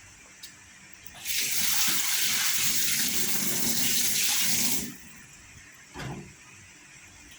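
Water running from a tap as a steady splashing hiss that starts about a second in and cuts off sharply after about three and a half seconds.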